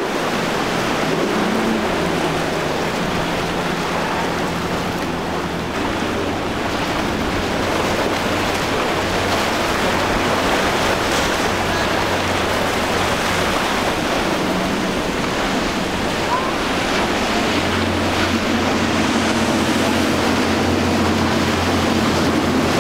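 Yamaha outboard motors on center-console boats running at speed, a low engine drone over the steady rushing of wake and surf, the drone strongest in the second half.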